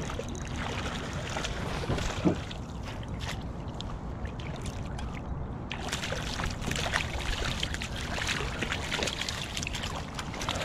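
Water splashing as a hooked coho salmon thrashes at the surface and is scooped into a landing net beside a kayak. The splashing is busiest from about six seconds in, over a steady low rumble.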